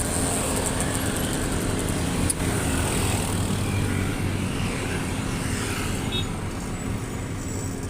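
Road traffic passing: vehicle engines and tyre noise, steady throughout, with a low engine hum and no horn sounding.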